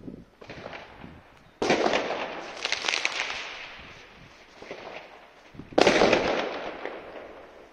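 Firecrackers and fireworks going off. Two loud bangs, about a second and a half in and near six seconds in, are each followed by crackling and a long fading echo off the surrounding apartment blocks. Smaller bangs come near the start and between them.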